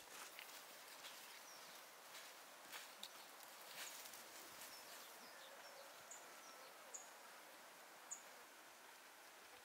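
Near silence: faint outdoor jungle ambience, with a few short, high bird chirps in the second half.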